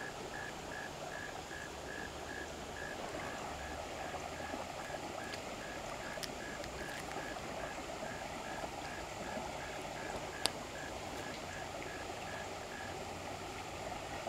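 Steady outdoor background hiss, with a faint even beeping about two to three times a second throughout and one sharp click about ten seconds in.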